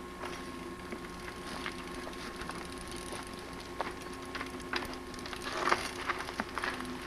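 Mountain bike rolling down a rocky forest trail: scattered clicks, then a cluster of crunching and rattling from the tyres over rock and dirt a little after halfway, over a steady hum in the recording.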